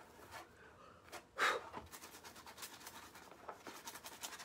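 Faint scratchy rubbing and handling noises of hands pressing rub-on transfers down onto a textured lampshade to work out trapped air. One brief louder swish about one and a half seconds in.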